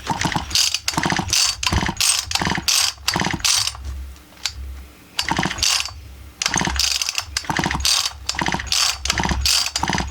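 Husqvarna 44 chainsaw's recoil starter pulled over and over in quick strokes, the cord rattling and the pawls and flywheel ticking, with a pause of about two seconds in the middle. The engine turns over freely with the spark plug out and does not fire: there is no spark.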